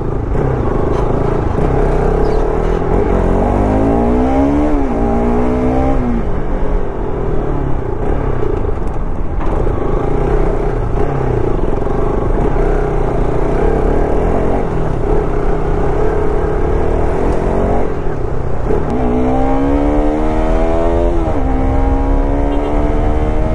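Bajaj Pulsar RS200's single-cylinder engine accelerating. The revs climb, drop at a gear change a few seconds in, then climb again. The engine runs steadier for about twelve seconds, then the revs climb again and drop at another gear change near the end.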